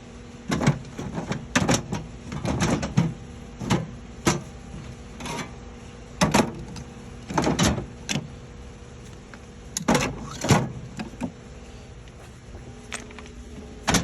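Steel toolbox drawers on a Snap-on Classic series box being slid open and shut, with short rolling slides, knocks and rattles of contents, about ten in a row with pauses between.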